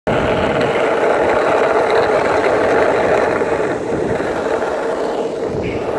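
Longboard wheels rolling steadily over rough asphalt.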